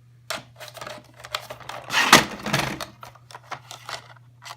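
A quick, irregular run of clicks and knocks, with a louder scuffing burst about two seconds in.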